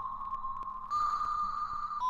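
Background music: a held, pure-sounding high note that steps slightly up in pitch about a second in.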